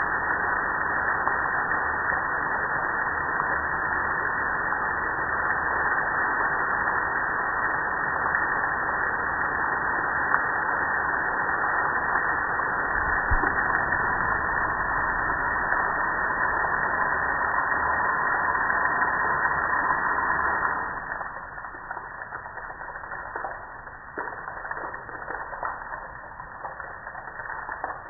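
Garden hose spray nozzle spraying water onto a metal gas grill, a steady hiss of spray. About three-quarters of the way through the spray stops, leaving water dripping and spattering off the grill.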